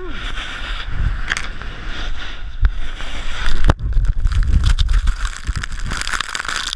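Snowboard sliding and scraping over snow, with wind buffeting the camera microphone and a couple of sharp knocks a little under three and four seconds in.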